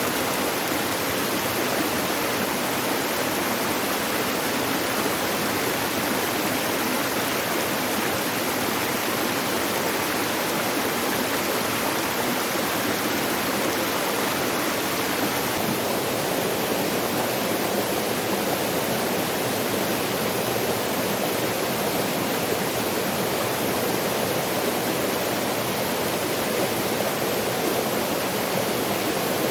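Waterfall rushing steadily, an even wash of falling water. About halfway through its tone turns slightly deeper.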